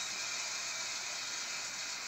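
Steady low background hiss with no distinct event.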